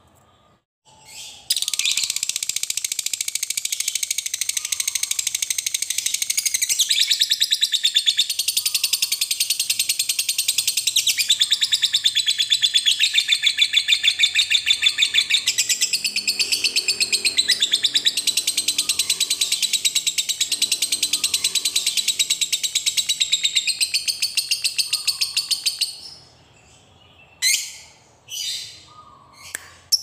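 Lovebird giving a long ngekek: a very fast, unbroken high-pitched chattering trill that starts about a second and a half in and runs for over twenty seconds. It then breaks off into a few short separate chirps near the end.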